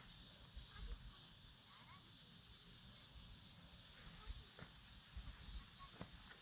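Near silence: faint outdoor background with a soft, evenly pulsed high chirping, like insects, and a few faint knocks.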